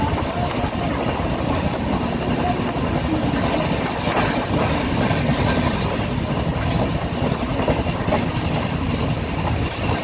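12605 Pallavan Express running along the track: steady noise of the train's wheels on the rails and its coaches on the move.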